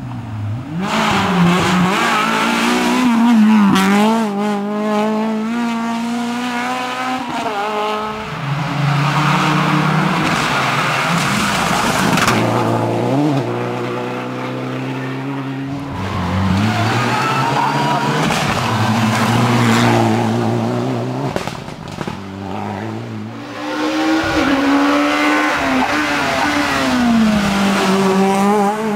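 Rally cars passing at speed, one after another in about four swells, engines revving hard with the pitch rising and falling through gear changes.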